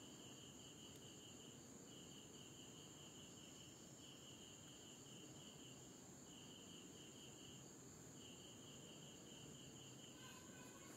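Near silence with a faint insect chirping: trains of short high pulses about five a second, each train lasting a second or so with short breaks between, over a faint steady high whine.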